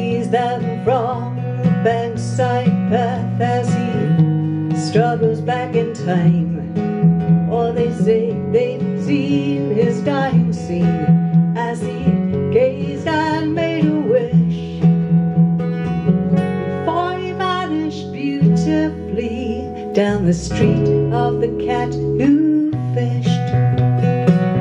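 Acoustic guitar strummed and picked over an electric bass, played live as a steady continuous passage.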